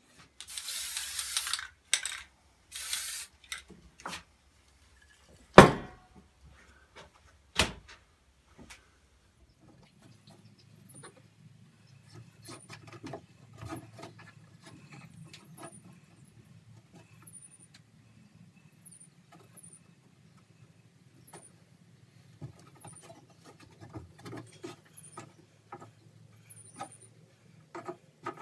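Two short bursts of hissing noise, then two sharp knocks a couple of seconds apart. After that come quiet rustling and small clicks of hands working thin cord across a hardboard panel, over a faint low hum.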